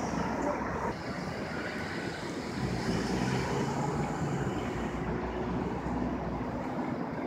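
City street traffic: steady road noise with a motor vehicle's engine running close by.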